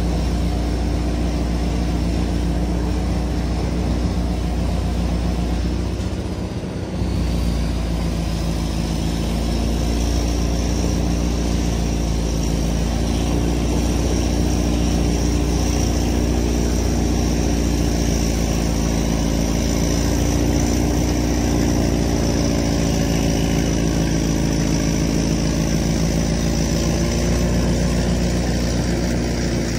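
Caterpillar 955 track loader's diesel engine running steadily as the machine moves, with a brief dip in level about six seconds in and a high whine from about seven seconds on.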